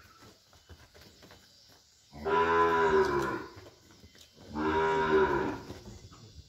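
A heifer in difficult labour mooing twice, two long calls of about a second each, about two seconds apart.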